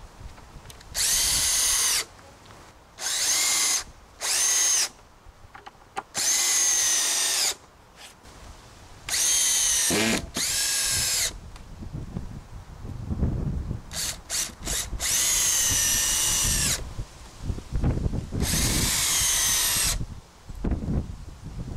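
Cordless drill-driver whining in about eight short runs of one to two seconds each, pre-drilling holes and driving screws into softwood timber framing. Scattered knocks of timber being handled fall between the runs.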